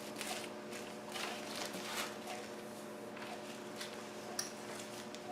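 Plastic wrapping being pulled off a walker's wheels: scattered faint crinkles and small clicks, over a steady low hum.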